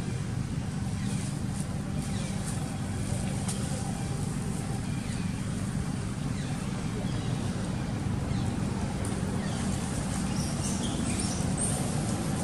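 Steady low engine hum, with faint short high chirps in the last few seconds.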